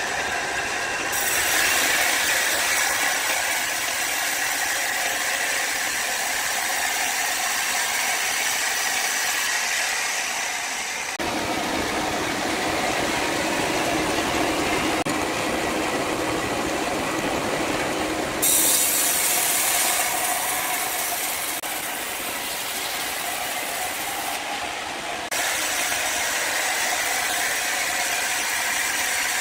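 Woodworking machinery running: a loud, steady mechanical noise that switches abruptly to a different character several times.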